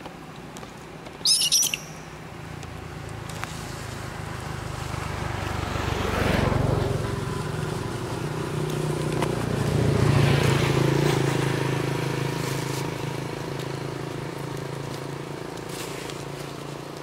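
Motor vehicles passing on a nearby road, one after the other: engine and tyre noise swells to a peak about six seconds in, dips, swells louder again about ten seconds in, then fades slowly. Near the start, a brief shrill squeal.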